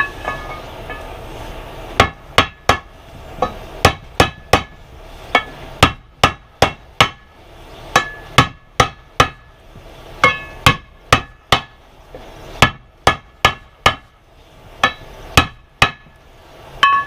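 Hand hammer striking again and again to drive a heated new steel starter ring gear down onto a diesel's flexplate, the metal ringing briefly after each blow. The blows come in quick runs of three to six with short pauses between. The ring is not dropping on freely, which the mechanic puts down to it needing to be a touch hotter.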